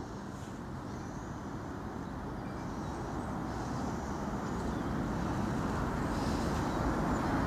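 Gusty wind on the microphone, a low rushing noise that grows steadily louder.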